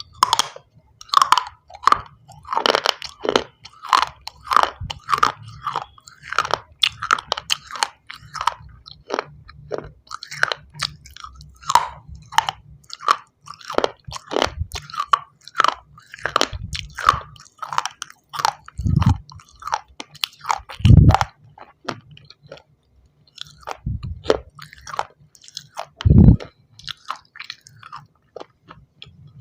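Shell stone pieces being bitten and chewed close to the microphone: a dense run of sharp, irregular crunches, with a few heavier low thuds in the second half.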